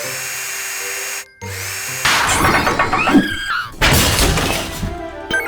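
Upbeat cartoon music over workshop sound effects: a steady hiss, then from about two seconds in a dense stretch of drill-like whirring and clattering, with a couple of quick sliding whistles.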